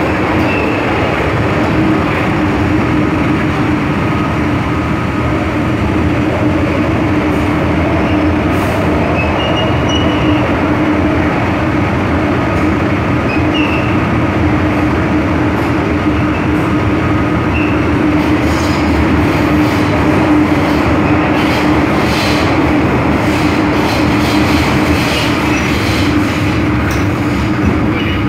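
MTR M-Train metro car running at speed, heard from inside the car: a steady loud rolling noise with a constant low hum. Short high squeaks come now and then, and clicks and rattles grow more frequent in the second half.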